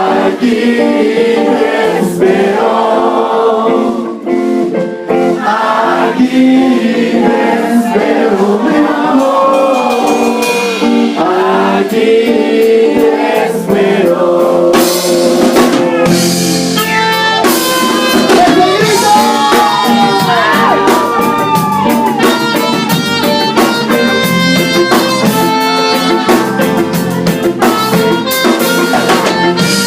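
Live ska band playing, with drums, guitar and a voice singing over the music.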